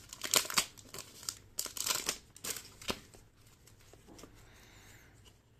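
Foil wrapper of a trading-card pack crinkling and tearing as it is pulled open by hand. The crackling comes in quick irregular bursts for about three seconds, then gives way to faint rustling.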